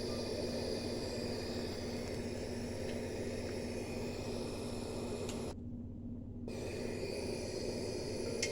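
Steady hiss with a low hum from a field recording played back through a TV at full volume, with a few faint ticks; the hiss cuts out for about a second a little past halfway while the hum stays.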